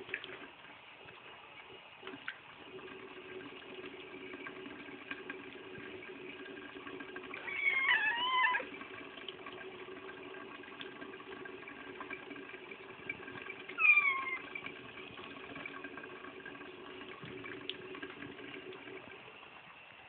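A cat meowing twice, a wavering meow about eight seconds in and a short falling one around fourteen seconds, over the steady faint sound of a running faucet.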